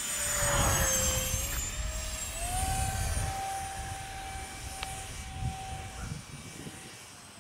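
Twin 50 mm 12-blade electric ducted fans of an RC A-10 Warthog jet whining as it flies past, loudest in the first second. The pitch dips as it passes, then rises a couple of seconds in to a steady higher whine as the plane climbs away.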